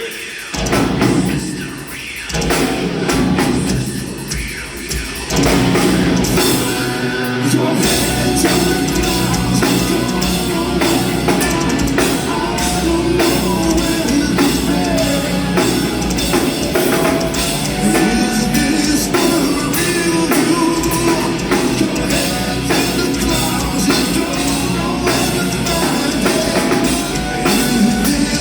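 Heavy metal band playing live through a concert hall PA: drum kit, distorted guitars and bass, with singing. The first few seconds come in short stops and starts, then the full band plays steadily from about five seconds in.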